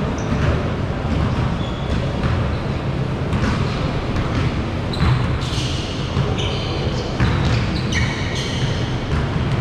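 A basketball bouncing on a hardwood gym floor, with sneakers squeaking in short, high-pitched chirps several times in the second half, in a large echoing hall.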